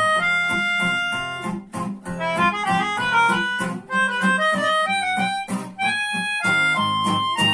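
Melodica playing a melody of short and held notes over a strummed acoustic guitar keeping a steady rhythm.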